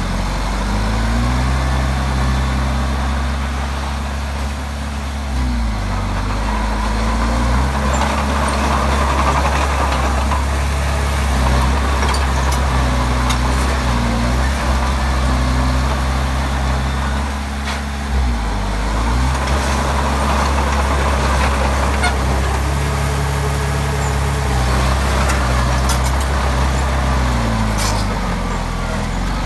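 Komatsu D20P bulldozer's diesel engine working steadily, its pitch dipping and recovering several times as the load changes, with a rough clattering noise over it.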